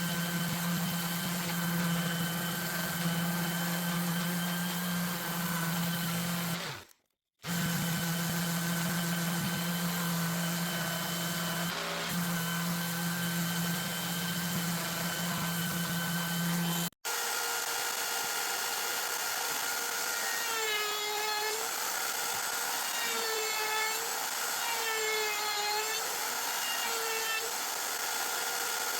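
Electric power-tool motor running at a steady pitch, broken by two abrupt cuts. After the second cut a higher-pitched tool runs and its pitch sags and recovers four times as it is loaded against the wood.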